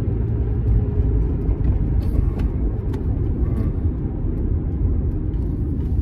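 Steady low rumble of road and engine noise inside a moving car's cabin, with a few faint ticks.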